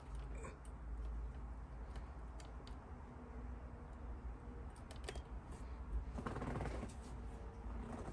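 Light scattered clicks and taps of small plastic model kit parts being handled and fitted by hand, with a short rustle about six seconds in.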